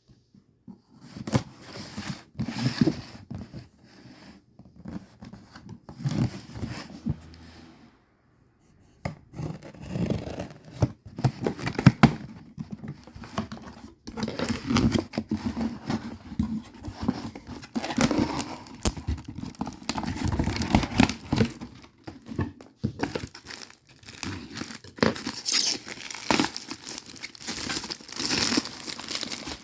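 Packaging being torn open and crinkled by hand in a series of irregular rustling bursts, with a brief pause about eight seconds in.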